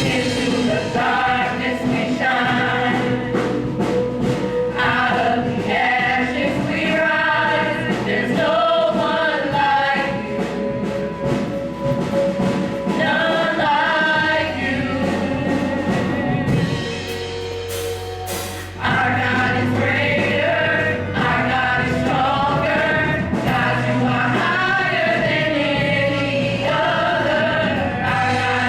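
Gospel praise and worship song: a choir singing over a steady band accompaniment, dropping back briefly a little past the middle before coming back in.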